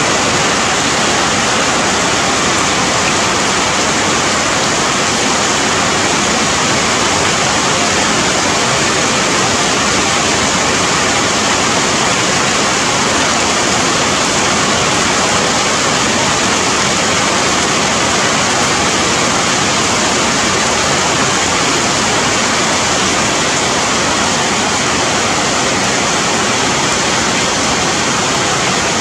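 Rain falling steadily on the leaves and branches of dense forest vegetation: a loud, even hiss without breaks.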